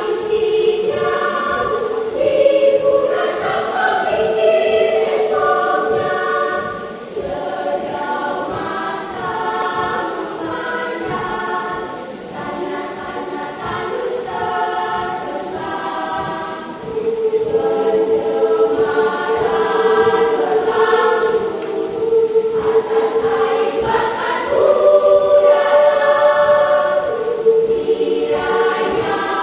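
Children's church choir singing in parts, a long held lower note under moving upper voices. The singing turns softer in the middle and swells fuller again for the last third.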